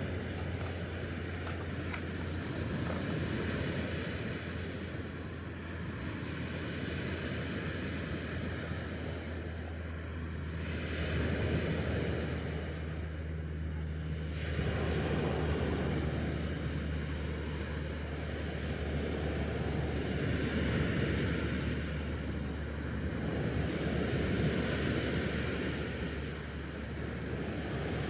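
Lake waves washing in, a broad rush that swells and falls every few seconds, over a steady low hum.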